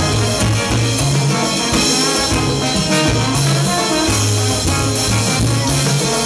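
Live salsa band playing, with horns over percussion and a repeating bass line.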